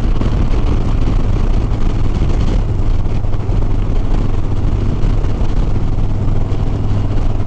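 Harley-Davidson Sport Glide V-twin engine running steadily at cruising speed, a constant low drone under a dense rush of wind and road noise.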